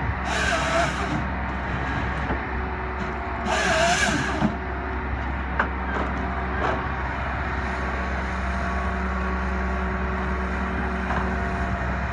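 Hitachi tracked forestry machine's diesel engine running steadily under hydraulic load as the boom and head work. There are two hissing bursts about a second each, one near the start and one around four seconds in, and two sharp knocks around six seconds in.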